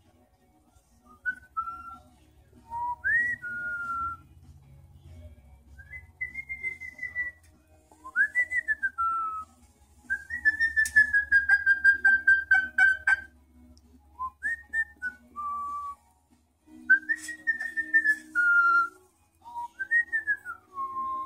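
Moluccan cockatoo whistling a string of short notes that swoop up and fall away, with one longer, slowly falling held whistle about ten seconds in.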